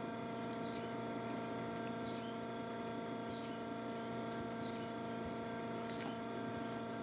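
A steady electrical-sounding hum, with short high chirps, bird-like, about every second and a bit.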